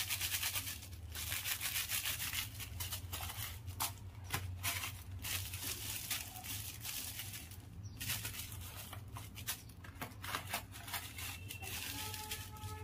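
Small clear plastic packets of snap-pop crackers being handled and turned over, crinkling and rustling continuously with many small sharp crackles, over a steady low hum.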